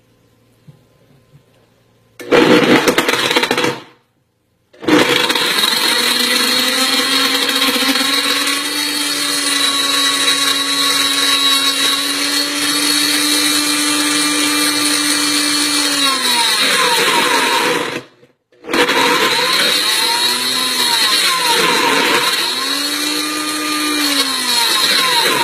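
Blendtec blender motor running with a Samsung Galaxy S7 Edge phone in the jar. It goes in three runs with short breaks between them: a brief burst, then a long steady run whose pitch sags near its end, then a run whose pitch keeps dipping and recovering. The motor is struggling against the phone.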